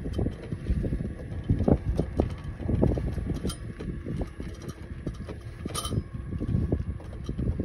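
Kress KR174E robotic lawn mower driving along a concrete path: a faint steady whine over an irregular low rumble from its treaded wheels and from wind on the microphone, with a few light clicks.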